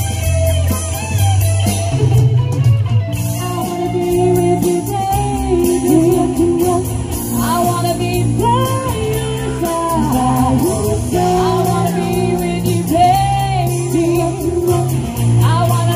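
Live band playing an 1980s pop-rock cover: women singing lead over electric guitars, keyboard and drums, with a steady beat.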